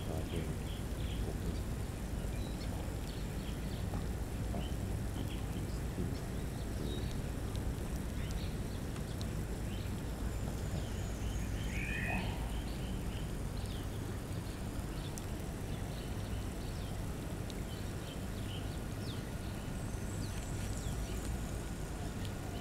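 Steady low rumble with scattered faint, short animal chirps and one clearer call about twelve seconds in.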